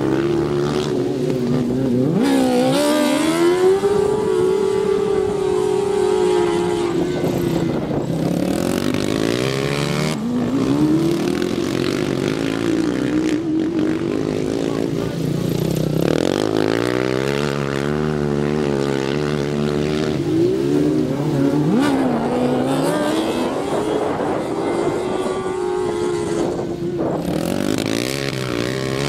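Several racing ride-on lawn mowers going round a dirt track, their engines revving up and easing off over and over, the pitch rising and falling as they accelerate out of the bends and pass by.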